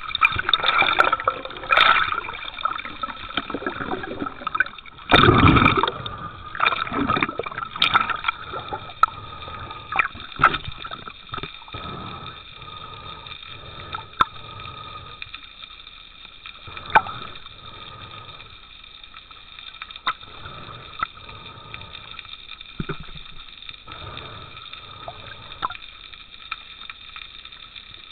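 Muffled underwater sound picked up by a mask-mounted camera: water rushing and gurgling past it in bursts, loudest about five seconds in and quieter in the second half, with scattered sharp clicks and a faint steady high hum.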